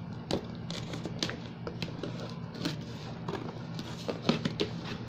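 Scissors cutting and snipping through packing tape on a cardboard shipping box, with irregular sharp clicks and scrapes against the cardboard.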